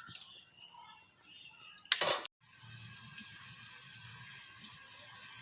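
Potato fries sizzling steadily in hot oil, starting after a short loud noise and a brief break about two seconds in.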